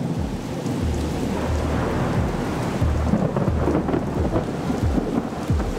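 Thunderstorm sound: steady heavy rain with low, rolling thunder rumbling under it, building slightly over the first second or so.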